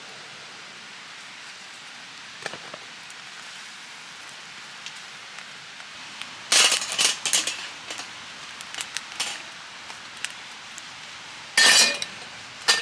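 Cookware and utensils clinking and clattering in two loud bursts, one about six and a half seconds in and one about eleven and a half seconds in, with a few light ticks between, over the steady rush of a river.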